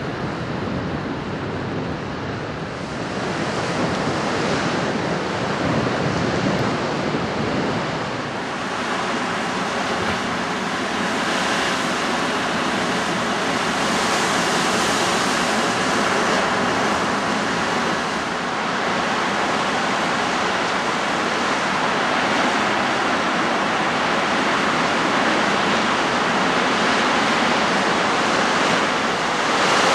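Ocean surf washing steadily, growing louder about eight seconds in.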